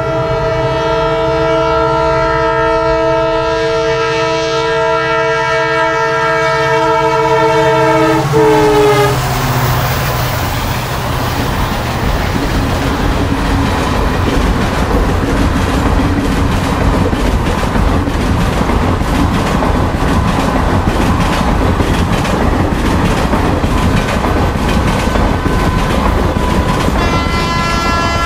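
Indian Railways WAP-7 electric locomotive sounding a long multi-tone horn as it approaches, the chord dropping in pitch as it passes. Its coaches then run by with a steady rumble and a regular clickety-clack of wheels over rail joints. Near the end another locomotive's horn starts up.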